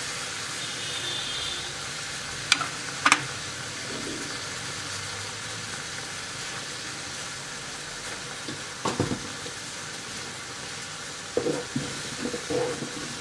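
Soaked chana dal heating in water in a kadai on a gas stove, with a steady sizzling hiss. A few sharp knocks break in: two about three seconds in, one near nine seconds, and a short cluster near the end.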